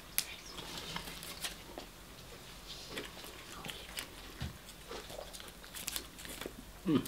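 Close-miked mouth sounds of a man chewing KFC fried chicken: scattered wet clicks and crackles, with light handling of the chicken pieces on their paper wrapping. A short vocal sound near the end.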